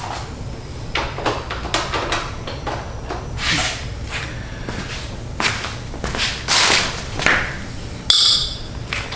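Metal parts and hand tools being handled while mower blades are fitted to the deck spindles: a string of clinks, knocks and short scrapes, with one ringing metallic ping about eight seconds in.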